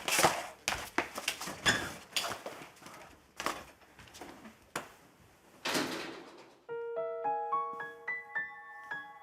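A run of sharp knocks and clatter, then soft solo piano background music comes in about two-thirds of the way through, playing single notes in a slow stepping melody.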